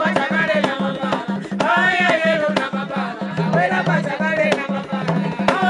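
Drums beating a fast, even rhythm while a woman sings over them.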